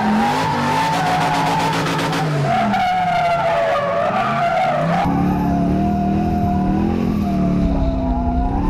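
Twin-turbo LS V8 in a Nissan 350Z drift car revving up and down while drifting, its rear tyres squealing and skidding. The sound changes abruptly about five seconds in.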